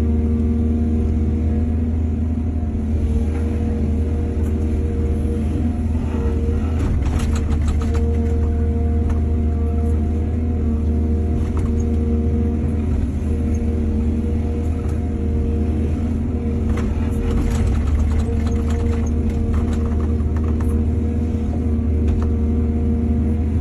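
Heavy diesel engine of an excavator running steadily under load, a deep even hum, with several short spells of clatter and rattling, typical of soil and stones being dug and dumped.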